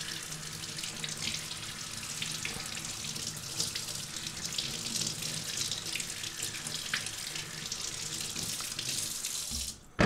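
Kitchen tap running, the stream splashing over a coffee machine's plastic brew unit held under it in a stainless steel sink; the water stops shortly before the end.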